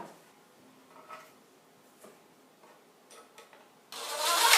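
Faint light ticks and taps from wooden pieces and tools being handled on a workbench. Near the end comes one brief, louder rushing burst lasting under a second.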